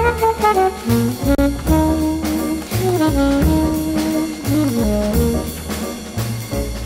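Jazz with a brass lead line over bass and drums, played back from cassette on a Pioneer CT-939 deck and recorded straight from the deck's line output.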